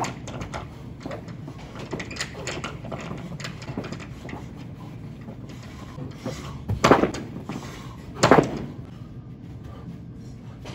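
Heavy battle ropes being whipped in waves, slapping the artificial turf over and over, with two much louder slams about two-thirds of the way through.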